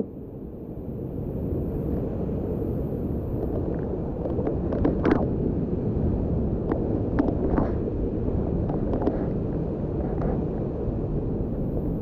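Wind buffeting the microphone as a low, steady rumble, with a few faint knocks about five and seven seconds in.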